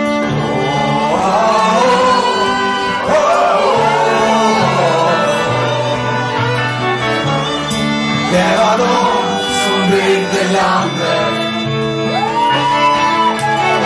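Live folk-rock band playing an instrumental break between verses: two fiddles play a sliding melody over acoustic guitar, electric guitar, electric bass and drums.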